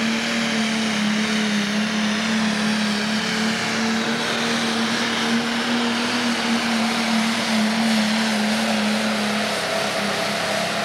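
Pro stock pulling tractor's turbocharged diesel engine running flat out under load as it drags the weight-transfer sled, a loud steady drone that holds one pitch throughout.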